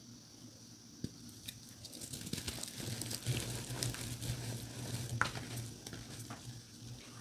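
Dyed gym chalk being squeezed and crumbled between bare hands: dense crunching and crackling. It starts with a single click, builds up from about two seconds in, and has a sharp snap about five seconds in.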